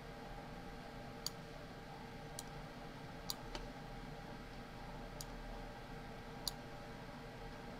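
Computer mouse clicking: about six short, sharp clicks at uneven intervals, over a faint steady electrical hum.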